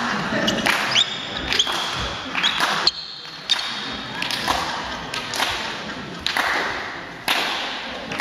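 Badminton play in a sports hall: irregular sharp racket strikes on a shuttlecock, echoing, with short sneaker squeaks on the wooden court floor.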